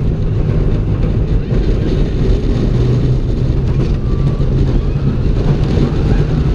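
Steel roller coaster train running along its track at speed: a loud, steady low rumble of the wheels on the steel rails, mixed with wind buffeting the onboard camera's microphone.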